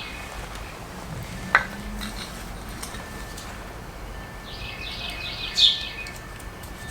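A bird chirps in a quick run of short high notes about five seconds in. A single sharp click comes about a second and a half in.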